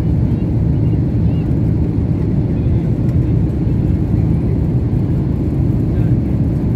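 Steady low rumble of jet engines and rushing air inside an airliner cabin in flight.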